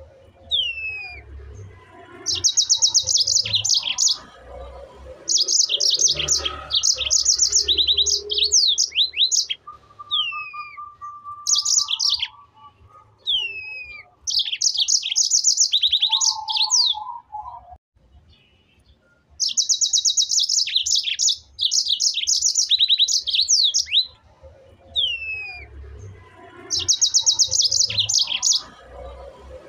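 A songbird singing: repeated phrases of rapid, high trills mixed with short downward-sliding whistles, broken by pauses of a few seconds.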